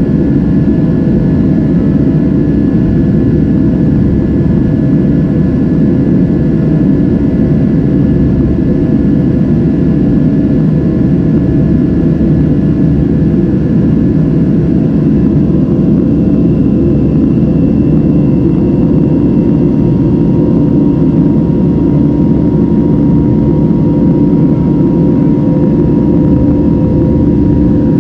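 Steady cabin noise of a Boeing 737-700 in its climb, heard from a window seat beside its CFM56-7B turbofan engine: a dense, even rumble with a few faint steady whining tones above it.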